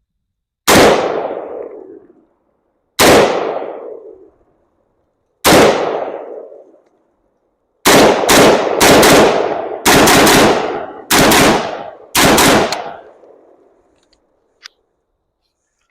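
Smith & Wesson M&P 10 semi-automatic rifle firing about a dozen shots, three slow aimed shots then a quicker string, each with a rolling echo. The rifle fires and cycles through the whole magazine without a light primer strike, testing a new extra heavy-duty hammer spring.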